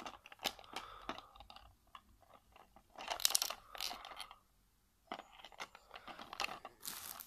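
Fingers handling a small plastic Happy Meal toy: a run of light plastic clicks and taps, with a few crinkly rustles about three seconds in and near the end.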